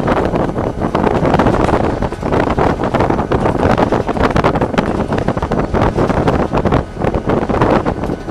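Wind buffeting the microphone in the cab of a moving Chicago and North Western SD40-2 diesel locomotive, over the running of its EMD 16-cylinder two-stroke diesel and the wheels on the rails. The wind noise is loud and gusty throughout.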